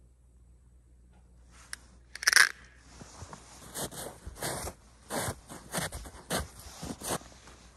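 Footsteps crunching through deep, fresh snow, one crunch roughly every half second from a few seconds in, after one louder, brief crunch about two seconds in.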